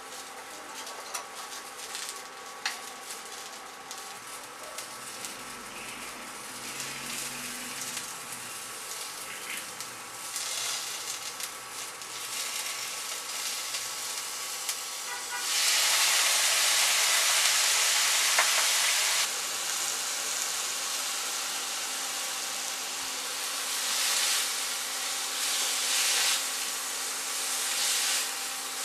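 Vegetables sizzling in a frying pan. A jar's metal lid is unscrewed with a few clicks, and about fifteen seconds in, soy-marinated onion is poured into the hot pan and the sizzle jumps to a loud hiss for about four seconds, then settles back to a steady sizzle as a spatula stirs.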